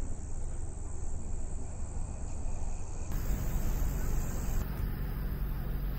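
Evening outdoor ambience: a steady low rumble of distant road traffic, with insects chirping in a high steady band that stops abruptly near the end.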